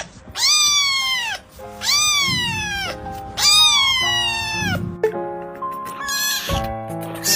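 A cat meowing: three long, loud meows about a second each, every one rising then falling in pitch, followed by a couple of shorter, fainter ones near the end. Background music with held notes plays underneath.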